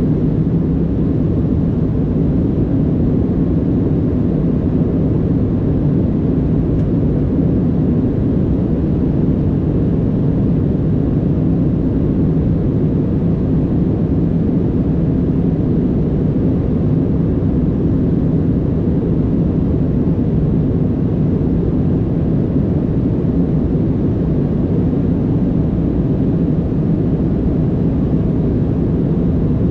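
Jet airliner cabin noise in flight: a steady low drone of the engines and rushing airflow that does not change.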